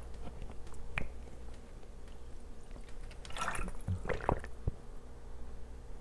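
Close-up gulping of water from a plastic water bottle: a few swallows bunched together a little past halfway.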